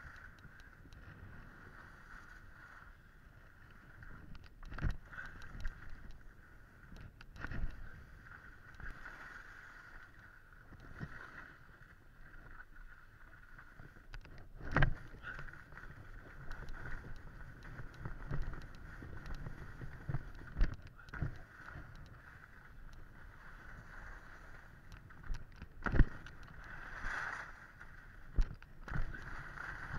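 Skis sliding and scraping over chopped-up snow, with irregular knocks and thumps every few seconds as they turn and bump, over a faint steady high-pitched hum.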